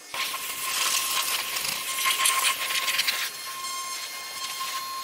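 Pressure washer spraying water onto a car's hood and bodywork: a steady hiss of spray with a thin, steady whine under it. The spray gets a little quieter about three seconds in.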